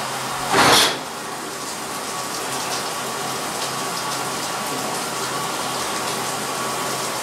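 Shower running, a steady spray of water, with a brief louder surge about half a second in.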